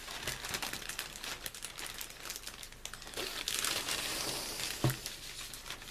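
Plastic bags of model-kit parts crinkling and rustling as they are handled, with small clicks throughout and a sharper knock about five seconds in.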